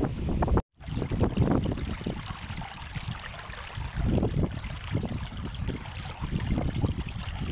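Shallow, rocky mountain stream running over stones, with uneven gusts of wind rumbling on the microphone. The sound cuts out for an instant under a second in.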